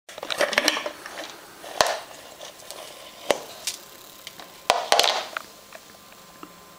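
A bottle being handled and laid against a wooden floor: several sharp knocks with scraping and rustling, loudest in the first second and again about five seconds in.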